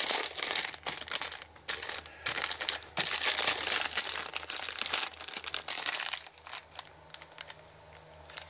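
Plastic instant-noodle packet crinkling as it is squeezed and turned over in the hand. The rustling is loudest for the first six seconds or so, then dies down to a few faint crackles.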